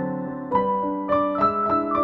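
Background piano music: single notes played at an even pace, about three a second, over a held lower note.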